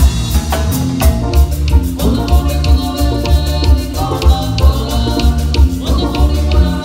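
Mexican banda music: a brass band plays with a strong, pulsing bass line under sustained wind-instrument melody notes, with steady percussion strokes.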